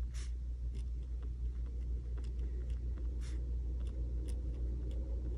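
Pen writing on a paper planner page: irregular short scratches and strokes, over a steady low hum.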